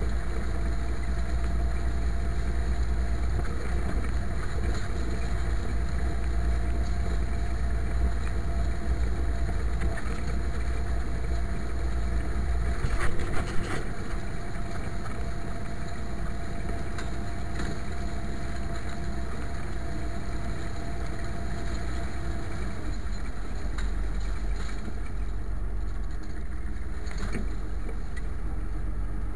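IMT 539 tractor's three-cylinder diesel engine running steadily under load while pulling a harrow, with a brief loud clatter about halfway through. The low rumble eases a little in the last third.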